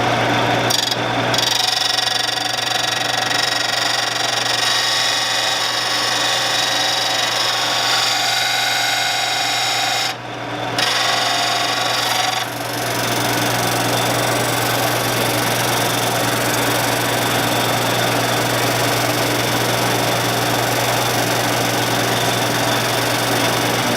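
Shopsmith running with a lathe tool held in a sharpening guide against the spinning abrasive: a steady motor hum under a continuous grinding hiss. The grinding drops out briefly about a second in and again around ten seconds in, as the tool comes off the abrasive.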